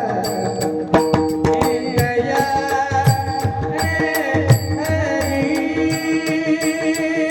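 Indian folk or devotional music: a held, sustained melody over hand-drum strokes and a steady high cymbal tick, about three beats a second.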